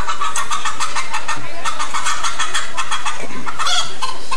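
Chicken-like clucking: a quick run of short, repeated clucks.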